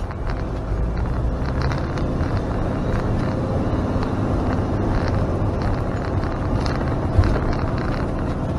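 Motorhome engine and road noise, a steady low rumble heard from inside the cab while driving, with a short knock about seven seconds in.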